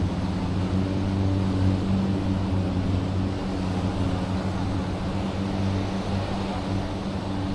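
An engine running steadily at an even pitch, a low hum.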